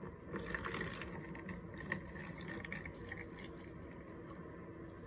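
Half a cup of water poured from a small plastic measuring cup into a plastic mixing bowl of clear glue, splashing and trickling for about two and a half seconds before tapering off.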